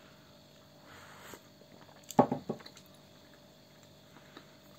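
A person sipping hot coffee from a mug: a soft slurp about a second in, then a short sharp thump about two seconds in, the loudest sound.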